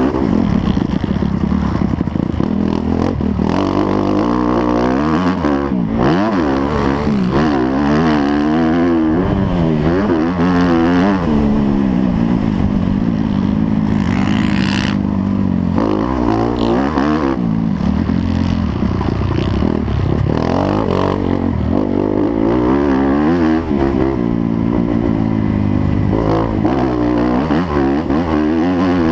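Several motocross motorcycle engines running at once, their pitch repeatedly rising and falling as the riders throttle up and shift, with the sounds overlapping and wavering continuously.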